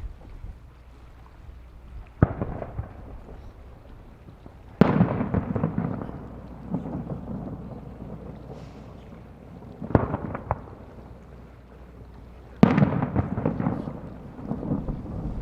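Aerial fireworks shells bursting: four sharp booms, about 2, 5, 10 and 12.5 seconds in, each followed by a long rolling rumble and echo. A quick cluster of extra reports follows the boom at about 10 seconds.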